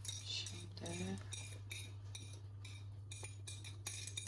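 Knife blade scraping and tapping chopped parsley off a ceramic plate into a pan: a run of quick, sharp clinks, a few a second, over a steady low hum.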